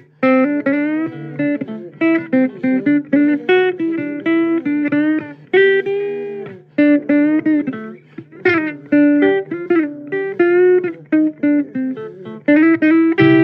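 Blues guitar break: a run of single plucked notes, many bent up and down in pitch, over a steady low note.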